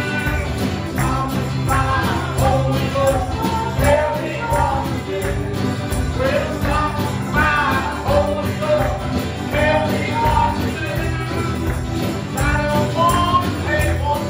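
Gospel song: a man sings lead into a microphone over a musical accompaniment with a steady bass line and jingling percussion on the beat.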